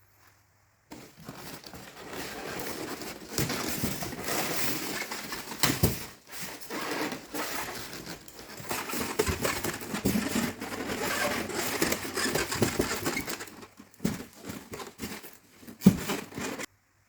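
Packaging being handled and opened: plastic wrapping and cardboard crinkling and rustling, with many small clicks and knocks. It cuts off abruptly near the end.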